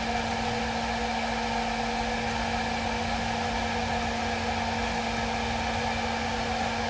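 CNC router spindle driven by a Huanyang VFD, running steadily: a constant hum with a rushing noise over it. It is short of full speed although 24,000 RPM is commanded, so the VFD's speed input needs calibrating.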